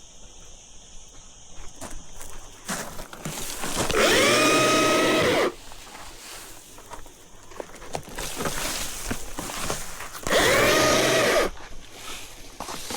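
Battery chainsaw run in two short bursts, about four seconds in and again near ten seconds, each time its electric motor spinning up to a steady whine and then stopping. Quieter rustling and clicks in between.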